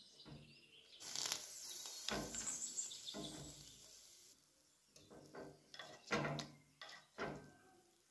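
A metal spoon scraping against a clay tagine and pushing raw chicken pieces through oil and spices in short separate strokes. A hiss starts about a second in and lasts about three seconds.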